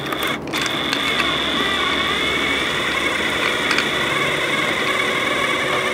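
Cordless drill/driver running steadily with a high whine, driving a screw into a boat's fiberglass hull to fasten a transducer flush mount.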